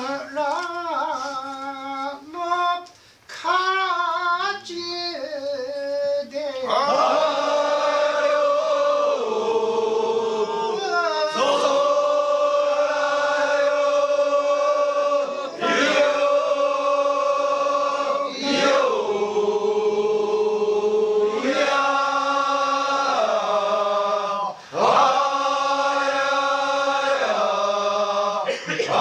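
Kiyari, a Japanese festival work chant sung unaccompanied. A lone lead voice sings a wavering, ornamented line. About six seconds in, a group of voices joins in long held notes that slide between pitches, pausing briefly for breath every few seconds.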